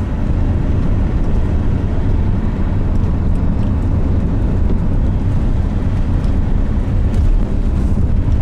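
Steady rumble of a car driving along a road, engine and tyre noise with no change in speed.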